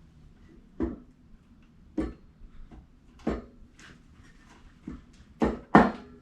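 Subaru EJ25 cylinder head being set against the engine block and worked onto its locating dowels: about half a dozen metal clunks roughly a second apart, the loudest two close together near the end as it seats.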